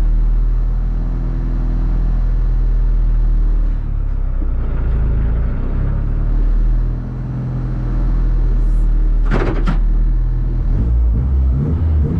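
Renault Clio Rally5 rally car's engine idling, heard from inside the cabin while the car waits at the start of a special stage. The revs waver a few times. Two short sharp bursts of noise come about nine and a half seconds in, and the engine note rises and turns choppy near the end as the revs come up.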